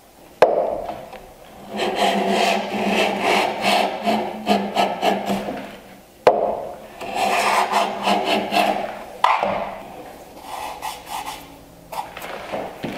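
Heavy iron miter plane shaving the end-grain bevel of a board clamped in a miter jack, in a series of planing strokes. New runs of strokes start sharply at about half a second, six seconds and nine seconds in.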